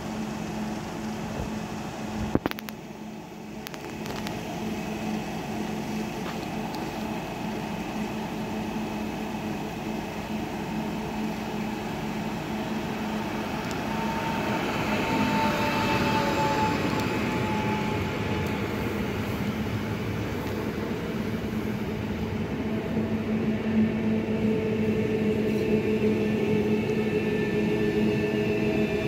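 A 48WE electric multiple unit running into the station along the platform, growing louder as it comes close, with a motor whine that falls in pitch as it slows. A steady low electrical hum sounds underneath.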